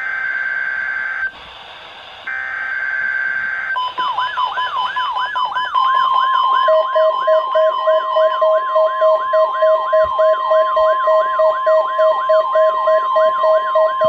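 Midland NOAA weather radio receiving an alert. First come two bursts of data tones from the emergency alert header. Then a warbling siren tone sweeps up and down about two and a half times a second over a steady 1050 Hz warning-alarm tone, and rapid beeping joins a few seconds later.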